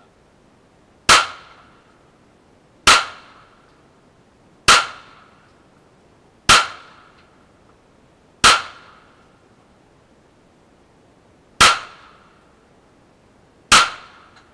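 Canik TP9 9mm pistol fired seven times in slow, aimed succession, about two seconds between shots with a longer pause before the sixth; each sharp report is followed by a brief echo.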